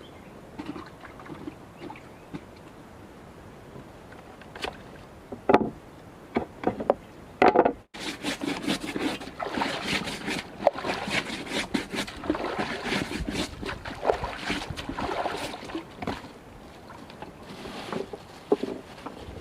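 Water splashing and sloshing around a small boat, with scattered knocks at first and then several seconds of busy splashing and handling.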